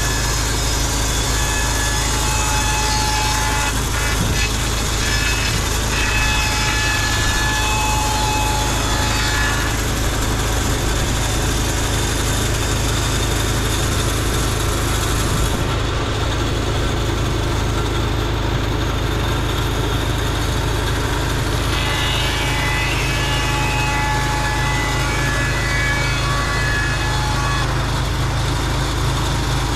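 Norwood LumberPro HD36V2 portable bandsaw mill running: its engine drones steadily while a higher whine and hiss from the blade comes and goes, through the first third and again from past the middle until near the end.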